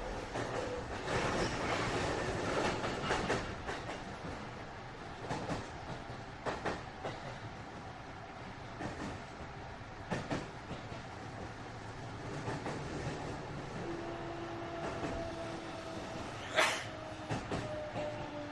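JR West 207 series electric multiple unit heard from inside the motor car: wheels on rail with scattered rail-joint clicks as it runs. About three quarters of the way in, the Toshiba GTO inverter's two-note whine comes in and slides slowly down in pitch as the train slows, with one sharp click near the end.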